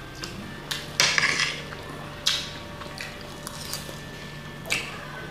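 Metal spoons and forks scraping and clinking on ceramic plates as food is scooped up, loudest in a cluster of scrapes about a second in, with single clinks a little after two seconds and near the end.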